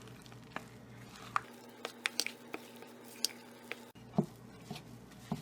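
Quick-bread dough being stirred in a mixing bowl: soft squishing with irregular light clicks and taps of the utensil against the bowl.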